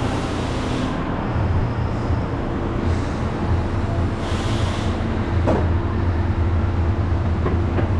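Steady low mechanical rumble, with a brief hiss about four seconds in and a few sharp knocks from ratchet tie-down straps being worked around an engine.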